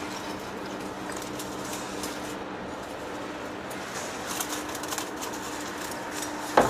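Heavy face lathe running in a workshop, a steady low machine hum with light scattered ticks and scrapes, and one sharp knock just before the end.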